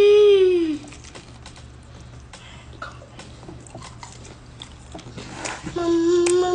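A woman eating a fried egg roll: a long 'mmm' hum of enjoyment, then quiet chewing of the bite with small scattered crunches, then another long 'mmm' near the end.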